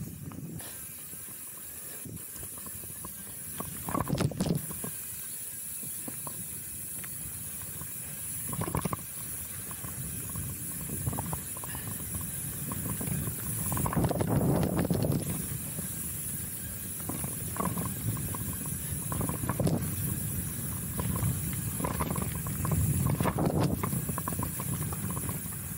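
Chromag Rootdown steel hardtail mountain bike rolling down a dirt singletrack: steady tyre and wind hiss, with short bursts of clattering and rattling as the bike goes over bumps, several times.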